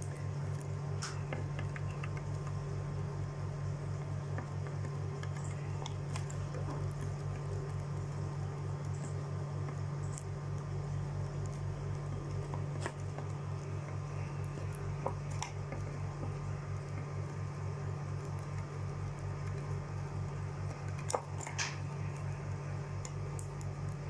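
A steady low hum underneath scattered sharp clicks and taps as Fischer's lovebirds peck and crack seed at a clear plastic feeder and among seed spilled on a wooden table.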